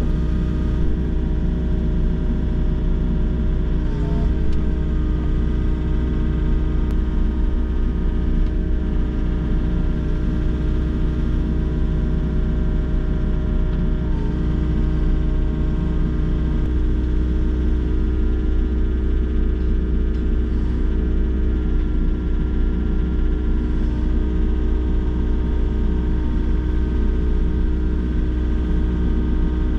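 Volvo excavator's diesel engine and hydraulics running at a steady speed, heard from inside the operator's cab as an even, deep hum.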